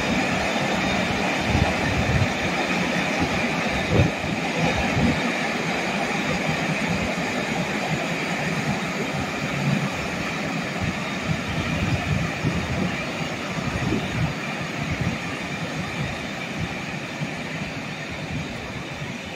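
A rake of passenger coaches rolling slowly past, a steady rumble of steel wheels on rail with irregular knocks over the joints and a faint high squeal on top.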